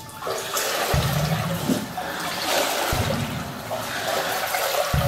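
Feet wading through water in a flooded brick tunnel, with continuous sloshing and splashing and a heavier splashing step about every two seconds.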